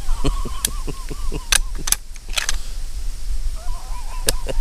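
People laughing in two bouts: a quick, even string of breathy laughs in the first second and a half, and a shorter burst near the end.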